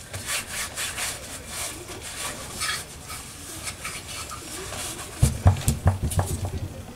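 Paper towel wiping and scrubbing over the Kohler KT17's cast-iron cylinder jug and bore, a quick run of rubbing strokes that cleans out the honing residue. About five seconds in, a cluster of louder knocks and bumps as parts are handled on the workbench.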